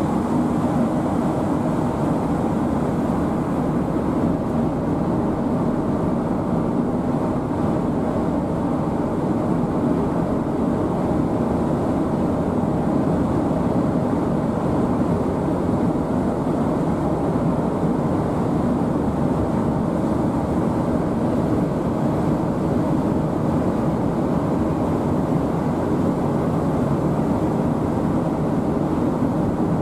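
Steady engine drone mixed with a rushing noise, unchanging in level and pitch.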